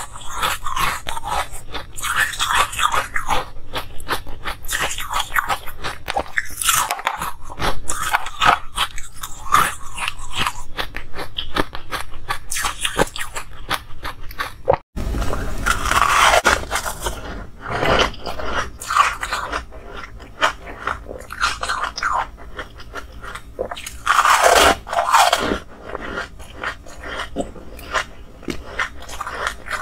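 Ice being bitten and chewed close to a clip-on microphone: dense, rapid crunching and crackling. There is a brief break about halfway, with loud bites right after it and again near the end.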